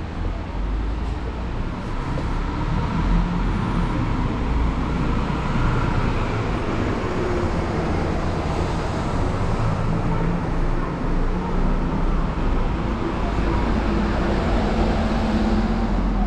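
City street traffic noise: cars and buses running along the road, a steady low rumble.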